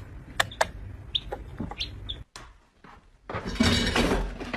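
A few sharp clicks, then three short high chirps, typical of a small bird. After a brief silence a loud, busy noise begins near the end.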